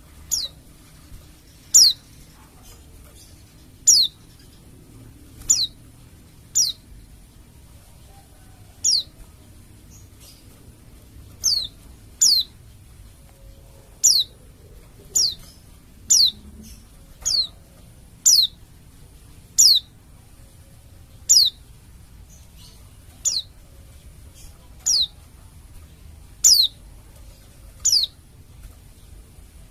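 White-eye (pleci) giving short, high call notes, each sliding steeply down in pitch, repeated one every second or two.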